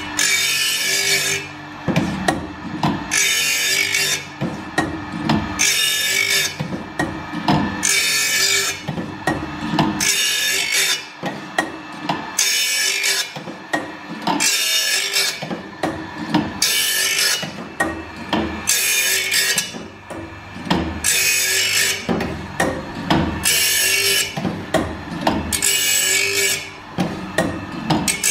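A carbide saw-blade sharpening machine's diamond grinding wheel grinds the teeth of a carbide-tipped circular saw blade one after another. Each stroke is a harsh hiss of about a second, coming about every two and a half seconds, with knocks from the machine between strokes as the blade moves on to the next tooth.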